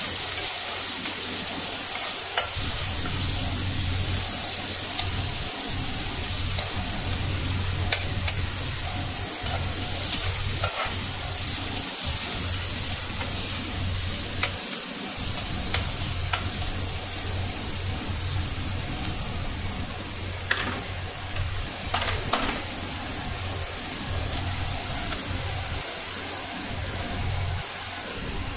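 Sliced onions sizzling in hot oil in an aluminium kadai, stirred with a slotted metal spatula that scrapes and clinks against the pan now and then. A steady low hum runs underneath.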